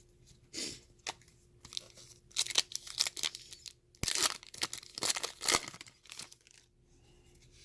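A baseball card pack's wrapper being torn open and crinkled by hand, in several short rustling bursts.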